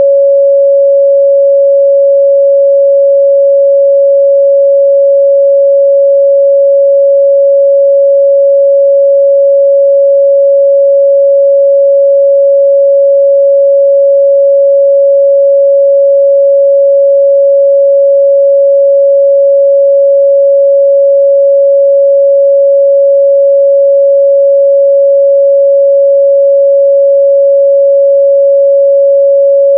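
A pure 557 Hz sine-wave test tone, held steady and loud at one pitch.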